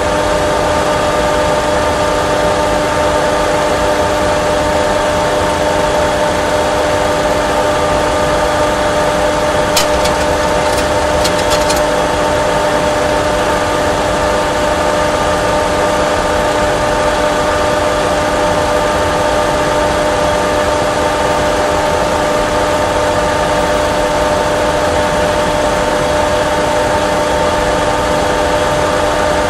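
Steady cockpit noise of a Boeing 737 Classic full flight simulator: the simulated engine and airflow sound running at a constant pitch with a few held tones. A few light clicks come about ten to twelve seconds in.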